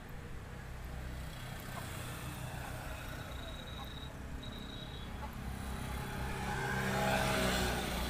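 A motor vehicle passing on the road, its engine and tyre noise building to loudest about seven seconds in and then fading, over a steady low rumble.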